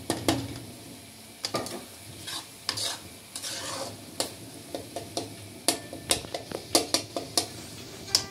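A steel spatula stirring and scraping a tomato masala in a black metal kadai, clinking sharply against the pan again and again over a faint sizzle of frying. The clinks come quicker in the last few seconds.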